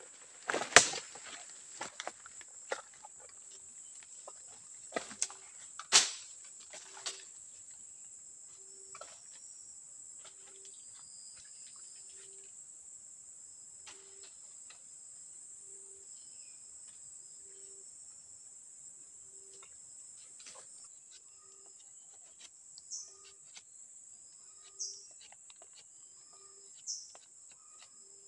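Tropical rainforest ambience: a steady high drone of insects throughout, with a short low note repeating about once a second. In the first seven seconds dry leaves and twigs crackle and snap underfoot, the loudest snaps about a second in and at six seconds.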